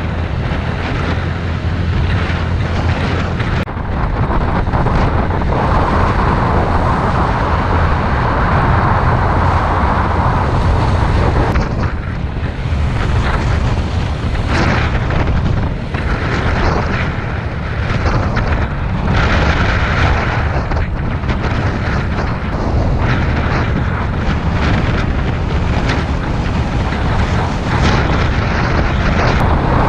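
Honda Cross Cub 110's single-cylinder engine running steadily on the move, under heavy, gusting wind buffeting on the microphone.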